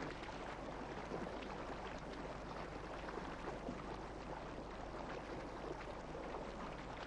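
Faint, steady wash of sea water with a constant low hum underneath.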